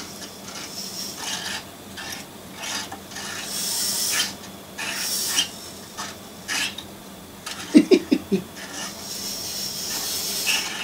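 A cat rubbing its head and face against a man's hair and beard close to the microphone: irregular scratchy rubbing strokes. A short low pulsing sound comes about eight seconds in.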